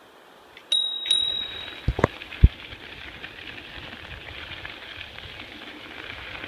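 A bicycle bell rung twice in quick succession, ringing out and fading, followed by a few sharp knocks from the bike. Then comes the steady crunch of bike tyres rolling on a gravel road.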